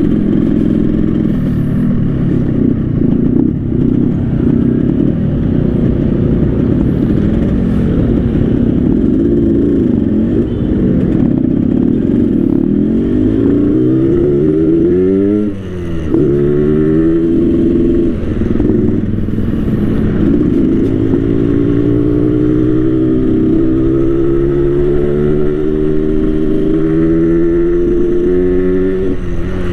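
Yamaha RX-King two-stroke single-cylinder engine with a Medan 'ngorok' (snoring) tuning and an underslung exhaust, ridden under way. Its pitch climbs as it accelerates, falls sharply and dips briefly about halfway through at a gear change, then climbs again and rises slowly and steadily through the last third.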